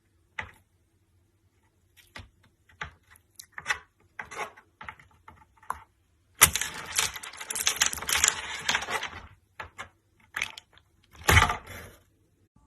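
Crackling and crunching: scattered irregular crackles, then a dense run of crackling lasting about three seconds starting six seconds in, and a louder crunch near the end.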